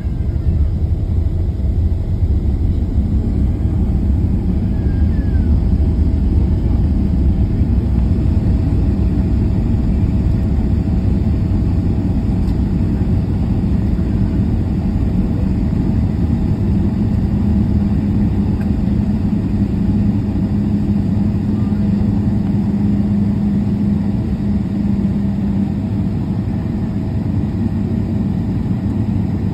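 Jet airliner cabin noise just after touchdown: a steady, loud low rumble of the engines and wheels on the runway that lightens about halfway through as the aircraft slows to taxi, with a steady hum over it.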